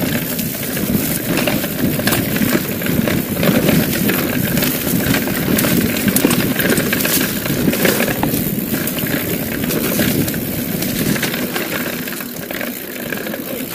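A mountain bike ridden fast down a dirt singletrack: a steady rush of wind and knobby tyres on dirt, with frequent rattling clicks from the bike over bumps.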